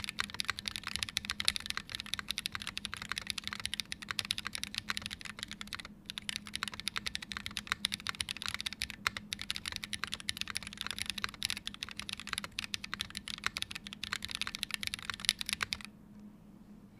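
Fast typing on a Wilba.Tech Thermal mechanical keyboard fitted with Krytox-lubed, filmed Holy Panda tactile switches, GMK keycaps and an aluminium plate, giving a rapid stream of key clicks. The typing breaks off briefly about six seconds in and stops about a second before the end.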